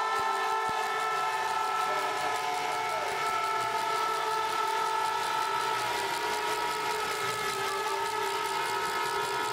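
Many spectators' horns sounding at once, their held notes overlapping into a steady, clashing chord over crowd noise.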